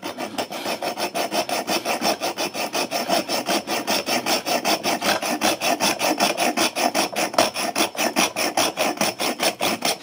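Small hacksaw cutting through a thin metal tube by hand, in fast, even back-and-forth strokes, about five a second.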